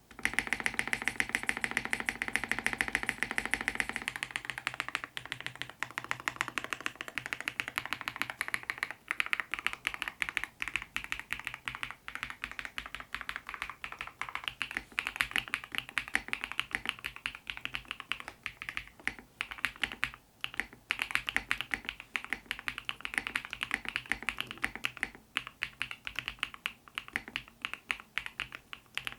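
Typing on an EPOMAKER QK108 full-size mechanical keyboard with factory-lubricated Wisteria linear switches and PBT keycaps. A very fast, dense run of keystrokes for about the first four seconds gives way to steady continuous typing. The keys have a deeper, lower-pitched tone rather than a sharp clack.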